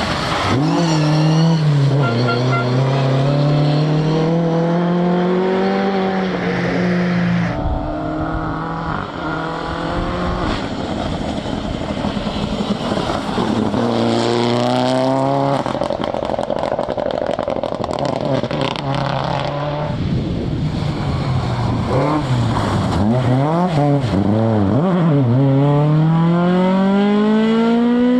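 Rally cars at full throttle on a special stage: engines revving hard and changing gear, pitch climbing and dropping repeatedly as each car goes by, with abrupt changes from one car to the next several times.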